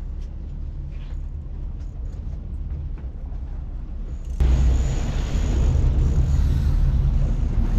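Low steady rumble of an idling boat engine under wind and water noise on the microphone; about four and a half seconds in, the wind and water noise suddenly jumps much louder.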